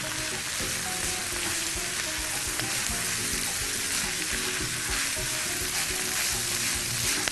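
Crumbled sausage and chopped onion frying in hot ghee, sizzling steadily while being stirred around the pan with a silicone spatula.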